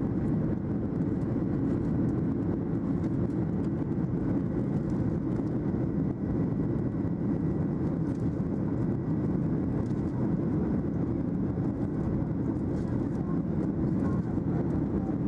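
Steady cabin noise of a Boeing 737-800 in the climb, its CFM56-7B engines and the airflow heard from a window seat over the wing: a low, even rush with a faint steady high whine.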